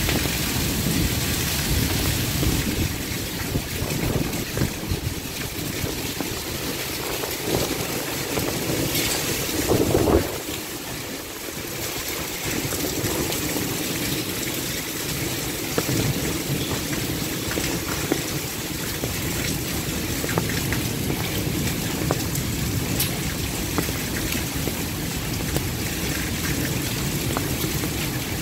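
Heavy rain pouring steadily onto ground, with many sharp drop hits ticking through it. About ten seconds in, a brief louder surge swells and cuts off, after which the deep rumble underneath thins out.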